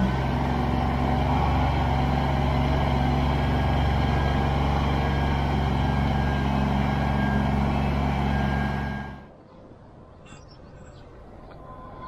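Kubota BX23S compact tractor's three-cylinder diesel engine running steadily as it works the loader forks to lift the stump out. The engine sound cuts off abruptly about nine seconds in.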